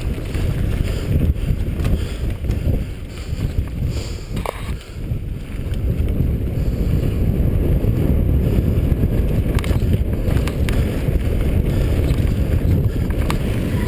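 Mountain bike descending a dirt trail at speed: a steady low rumble of wind on the camera microphone and tyres on dirt, with a few sharp clicks and clatters from the bike.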